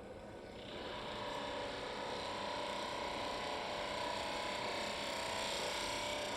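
Texturing tool held against black walnut spinning on a wood lathe, starting about a second in and cutting texture with a steady buzzing chatter and a held tone.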